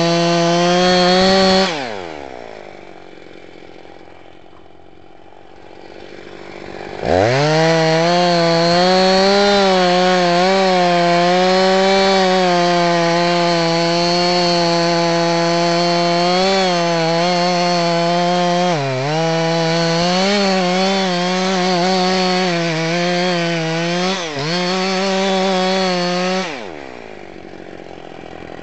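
Husqvarna 346 XPG two-stroke chainsaw cutting into a Sitka spruce trunk at full throttle. About two seconds in it drops to idle, then revs back up some five seconds later and cuts steadily for about twenty seconds; its pitch dips briefly twice as the chain bogs in the wood. Near the end it falls back to idle.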